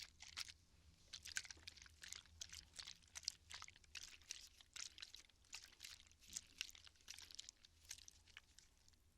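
Water bottle being handled close to the microphone, giving a dense, irregular run of quiet crinkling crackles and clicks.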